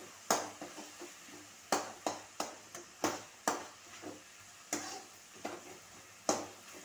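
Metal spatula stirring and scraping tomato-onion masala in a metal kadai, knocking against the pan about nine times at irregular intervals over a faint sizzle.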